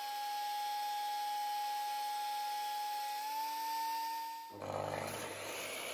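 DeWalt two-speed benchtop thickness planer running a wood strip through with a steady whine. The pitch steps up slightly a little over three seconds in as the motor unloads. The whine stops about four and a half seconds in, and a lower hum follows.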